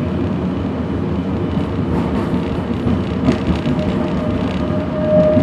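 A restored mid-1900s electric streetcar running along its track, heard from inside the passenger cabin as a steady rolling rumble. A steady high tone comes in near the end.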